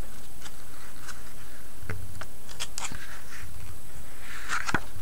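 Pages of a thick printed catalog being handled and turned: a string of short, crisp paper rustles and clicks, busiest about two to three seconds in and again near the end.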